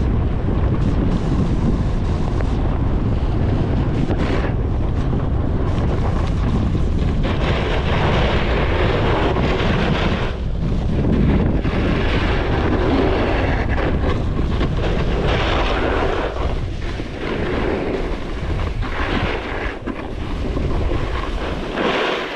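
Wind rumbling and buffeting on the microphone of a camera carried by a downhill skier. A hiss of skis on snow swells and fades with the turns.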